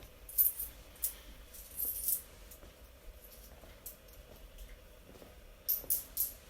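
A few short, light clinks and rattles in small clusters, over a faint steady hum.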